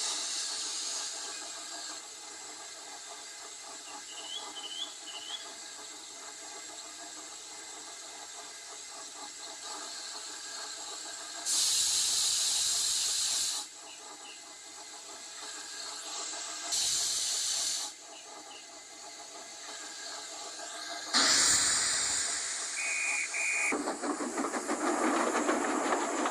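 A steady hissing background with several bursts of loud hissing: two short ones, then a longer one of about five seconds near the end, with a brief tone sounding during it. A few faint chirps come about four seconds in.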